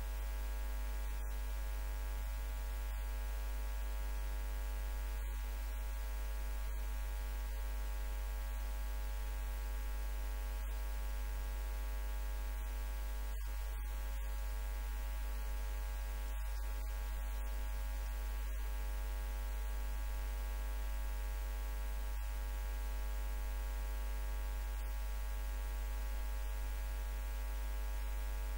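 Steady electrical mains hum: a strong low drone with a ladder of fainter, evenly spaced higher tones above it, unchanging throughout.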